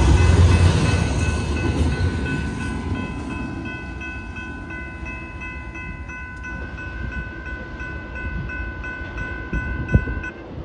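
Double-stack intermodal freight train rolling away, its low rumble fading, while a grade-crossing bell rings steadily. The bell stops near the end, just after a single sharp knock.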